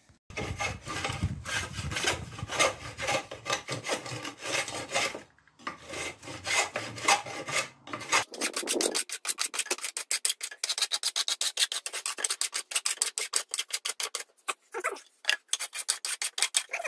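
A hand tool scraping along the bent wooden trailer drawbar in repeated back-and-forth strokes, shaping and smoothing the wood. The strokes are heavier in the first half, then quicker and lighter from about halfway on.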